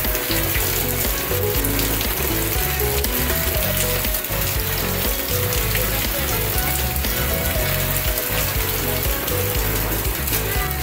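Heavy rain falling and splashing on nearby surfaces: a dense, steady hiss with many small drop impacts.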